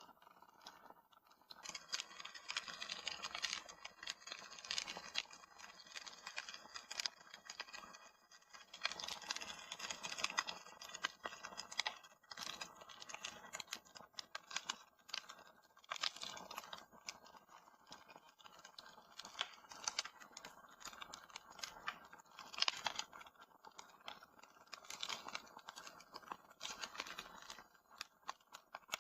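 Wood fire crackling in a fireplace: a dense run of small, irregular crackles and pops that thicken and thin out in waves.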